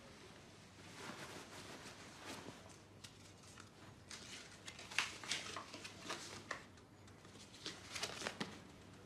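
Clothing rustling as it is handled, then a folded sheet of paper crackling as it is unfolded, in two spells of sharp crinkling, one starting about four seconds in and a shorter one near the end.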